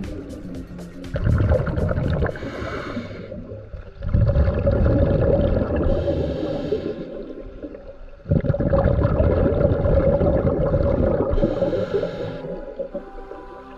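Scuba diver breathing through a regulator underwater: long rushes of exhaled bubbles, with short breaks for inhaling between them, a cycle every few seconds.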